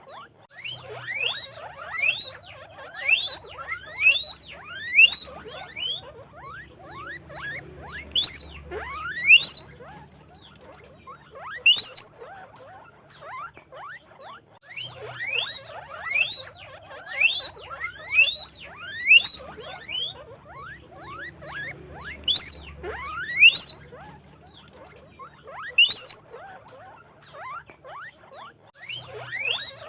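Guinea pigs wheeking: loud rising whistle-like squeaks, one or two a second, in bouts with short lulls, over fainter overlapping squeaks from other animals.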